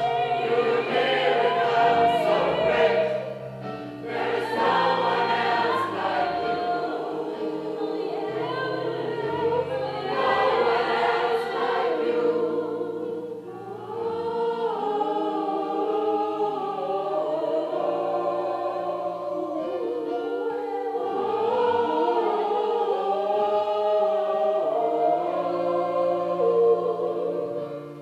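Gospel choir singing, voices held on long notes with vibrato over low sustained bass notes.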